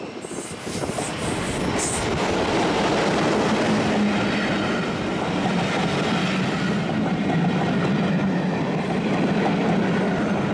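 British Railways Class 33 'Crompton' diesel locomotive 33012 with its Sulzer eight-cylinder engine, passing close by with its train: a steady engine note along with wheels clattering over the rail joints. The sound builds over the first two seconds and then holds steady and loud.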